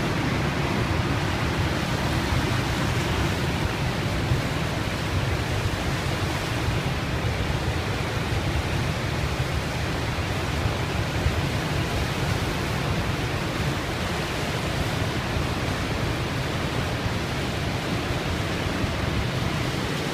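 Steady rushing of the Niagara River's water at the brink of the Horseshoe Falls, a constant deep noise that never lets up.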